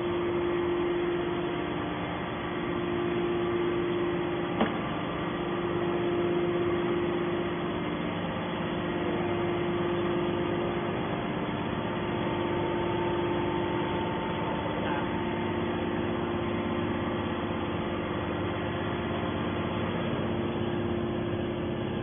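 Hydraulic scrap-metal baler's power unit running with a steady hum and a few steady tones, the machine idle with no pressing stroke. A single click about four and a half seconds in.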